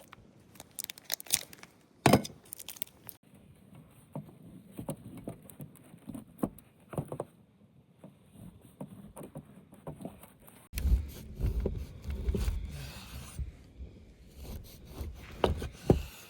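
Close-up scraping, tapping and clicking sounds of handling. About eleven seconds in, wind rumbles on the microphone for a couple of seconds.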